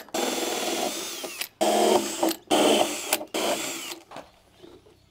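Cordless drill driving a hole saw through square PVC pipe, in four runs broken by short gaps. It stops about four seconds in.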